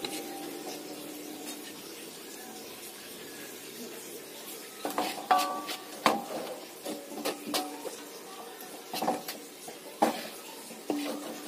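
A metal ladle clinking and scraping against an aluminium wok and a glass bowl as cooked soy-sauce chicken is ladled out. The sharp clinks, some ringing briefly, start about five seconds in and come every second or so.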